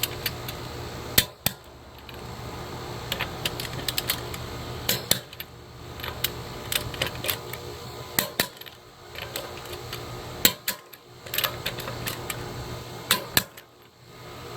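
Torque wrench tightening wheel lug nuts to 100 foot-pounds: a series of sharp metallic clicks at uneven intervals.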